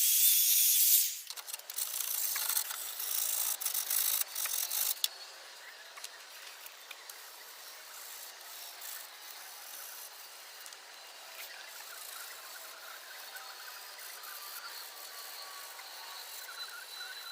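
A spray hiss stops about a second in. Then comes a few seconds of irregular scraping and rubbing on metal with small clicks, as rust is worked off a car body by hand. After that only faint hiss and the odd light scrape remain.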